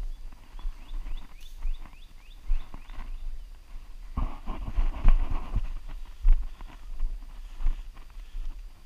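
Footsteps of a walker on a wet, grassy trail, heard as dull thumps every half second or so, with a louder stretch of rustling through the brush around four to five seconds in. A bird chirps rapidly in the first two seconds.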